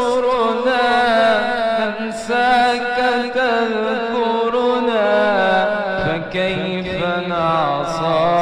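Solo voice singing an Arabic ibtihal (Islamic devotional chant), drawing out long ornamented melismatic runs on held vowels between the sung lines. A steady lower held tone sits under the voice in the second half.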